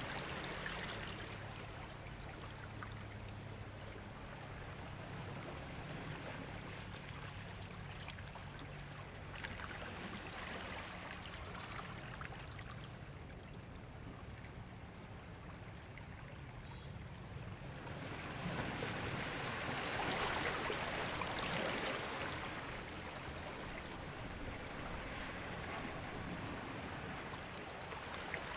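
Ocean waves washing onto a shore: a continuous rushing wash that eases off after the start, then swells up again about two-thirds of the way through and once more near the end.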